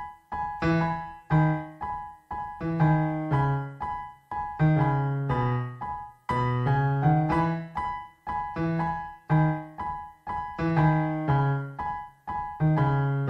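Background keyboard music with a piano sound: a gentle run of struck notes and chords, each ringing and fading before the next.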